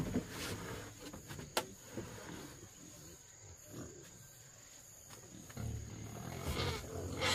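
Low animal sounds, on and off, louder in the last two seconds, with a sharp click about a second and a half in.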